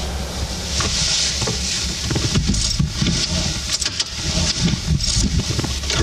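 Car cabin noise: a steady low engine and road rumble with hiss, which becomes bumpier and uneven about two seconds in.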